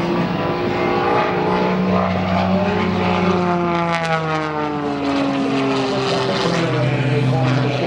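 Wolf Pitts Pro aerobatic biplane's radial engine and propeller running hard during aerobatic manoeuvres, the engine note falling in pitch through the middle as the plane passes.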